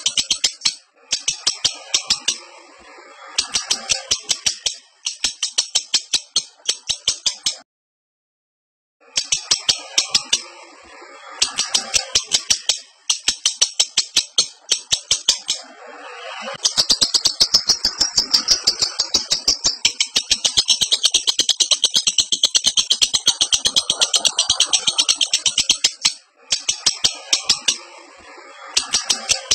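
Lovebird in breeding condition chattering in fast, high, rapidly repeated notes, in runs of a second or two, with one long unbroken chatter of about ten seconds in the second half. A short complete drop-out occurs about a quarter of the way in.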